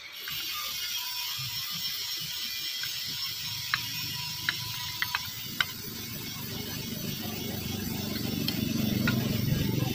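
A steel blade scraping and shaving a wooden handle by hand, with a series of sharp clicks as the edge catches. The rasping grows louder toward the end.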